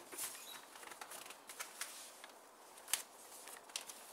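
Folded paper track mat rustling and crinkling as it is unfolded and handled, with a sharper crackle about three seconds in.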